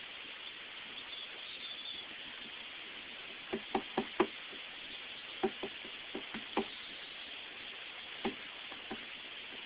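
A few short, soft clicks or taps in small clusters over a steady hiss.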